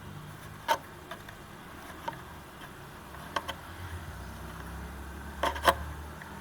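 Scattered light clicks and knocks of hands working on speaker mounting and wiring, the loudest a quick double knock near the end, over a low steady hum.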